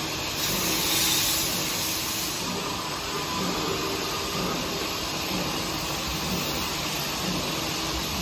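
Automatic jerrycan filling and capping line running: a steady mechanical hum and hiss from the chain conveyor and induction cap sealer, with a louder hiss starting about half a second in and fading after about two seconds.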